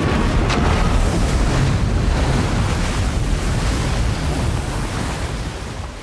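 Loud rushing, splashing water with a deep rumble beneath it, as a giant creature thrashes in a river. It dies down near the end.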